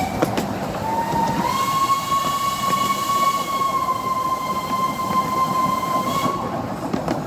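Miniature steam locomotive's whistle blowing one long blast of about five seconds, its pitch rising slightly as it opens and then holding steady. Underneath it, the carriage wheels rumble and rattle along the track.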